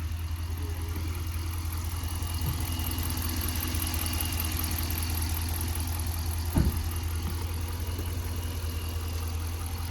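Dodge Durango R/T's V8 engine idling steadily, with one sharp knock about two-thirds of the way through.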